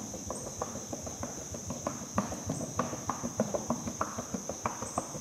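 Peruvian Paso horse's hooves clopping on a wooden plank bridge in a quick, even four-beat rhythm, growing louder as the horse comes closer. A steady high-pitched buzz runs behind it.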